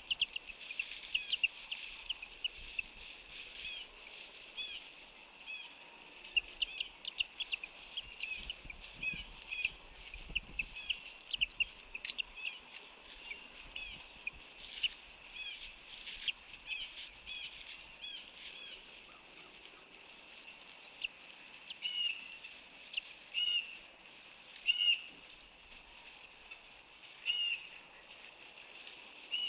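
Birds calling: many short, high chirps in quick succession for the first half, then single calls a second or two apart, over a faint outdoor background.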